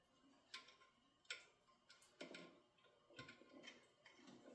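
A handful of faint, irregular metallic clicks as the timing chain and cam sprocket of an ATV engine are worked by hand to shift the cam timing by a tooth.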